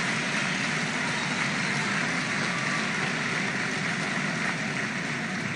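Large crowd applauding, a steady wash of clapping that eases slightly near the end.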